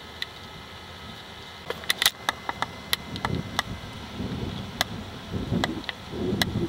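Camcorder handling noise over a steady hiss: from about two seconds in, scattered sharp clicks, then irregular low thumps and rumbles as the camera is carried and moved about over the ground.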